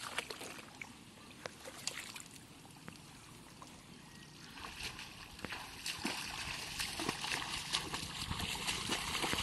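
Aquatic plants being pulled up and rustled, with scattered small snaps. About halfway through this gives way to feet wading through shallow water, a louder run of repeated splashing and sloshing steps.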